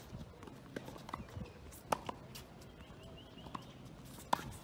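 Tennis ball rally on a hard court: sharp pops of the ball coming off the racket strings and bouncing on the court, the loudest a forehand strike about four seconds in.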